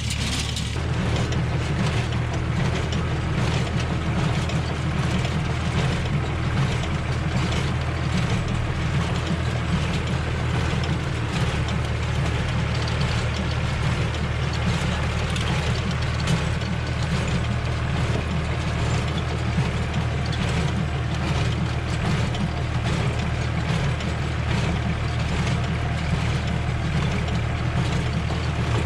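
Tractor engine running steadily while a hay baler works behind it, its mechanism clattering over and over.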